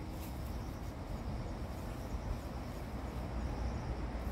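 Steady low rumbling background noise with a faint hiss above it, no distinct events.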